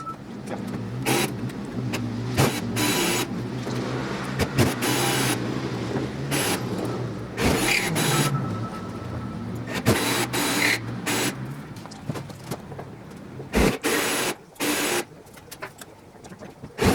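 A power tool run in short bursts, again and again, while working the aluminium wing skin and spar. Each burst lasts from a fraction of a second to about a second, over a steady low hum.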